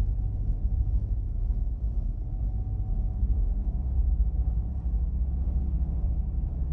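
Sci-fi UFO sound effect: a steady low drone with faint held tones above it, unchanging.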